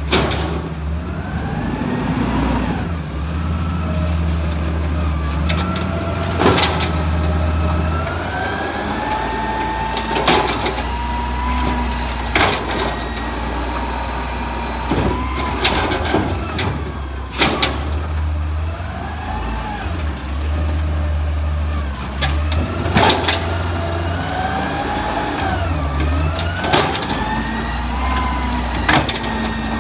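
Automated side-loader garbage truck working its lift arm: the diesel engine revs up and settles back in steps to drive the hydraulics, with a whine that rises and falls in pitch along with it. Sharp clanks and bangs every few seconds as the arm grabs, lifts and shakes out trash carts.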